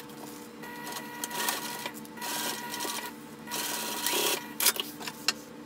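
Juki sewing machine stitching a seam in a few short runs, with its steady motor hum between runs and a few sharp clicks near the end.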